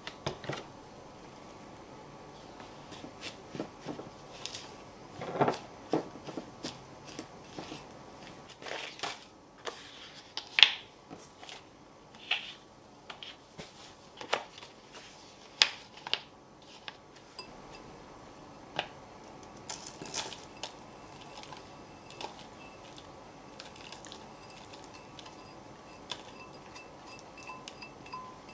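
Kitchen handling sounds: a silicone spatula stirring and scraping biscuit crumbs in a glass bowl, then scattered clinks, taps and crinkles as a stainless steel cake ring is lined with a plastic film strip. The crumbs are tipped from the bowl near the end. The sounds come as irregular short clicks and scrapes, busiest in the first half and sparser later.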